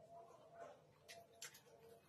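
Near silence with faint mouth and hand eating sounds: two short, soft wet clicks about a second in, from chewing and from eating rice by hand.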